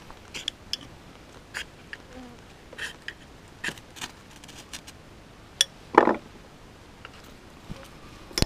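Fire steel (ferrocerium rod) struck repeatedly with a scraper over birch bark: a series of short scrapes at uneven intervals, the loudest about six seconds in, throwing sparks to light the bark tinder.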